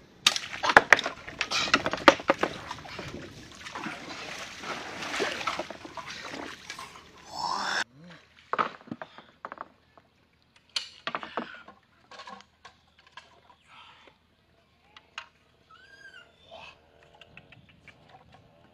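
Water splashing and sloshing around a wooden dugout boat, with sharp knocks of wood on wood, for about the first eight seconds. Then a short squeal, followed by scattered knocks and clicks and a faint chirp near the end.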